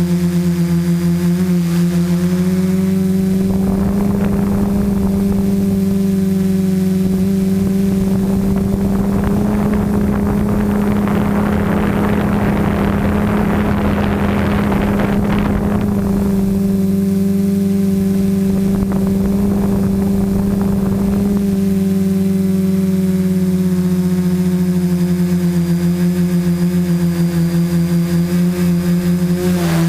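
Home-built Mavic-clone quadcopter's motors and propellers humming at a steady, constant pitch, heard from the drone's own onboard camera. A rushing noise comes in over the hum a few seconds in, is strongest in the middle, and dies away a little after twenty seconds.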